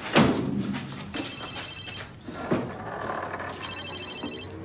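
A vehicle door bangs shut just after the start, then a phone rings twice with a rapid electronic trill, the rings about two and a half seconds apart.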